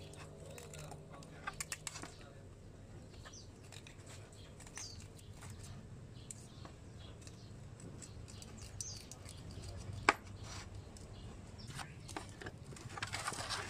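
Faint scraping and small clicks of a hand tool working carbon deposits out of a Honda Supra X 125's aluminium cylinder head combustion chamber, with one sharp click about ten seconds in. Near the end a louder rubbing starts as sandpaper is worked over the head.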